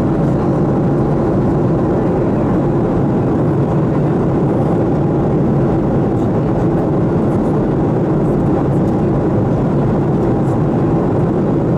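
Steady cabin noise inside a Boeing 737-400 in flight: an even, low rushing hum of airflow and its CFM56-3 jet engines, with no change in level.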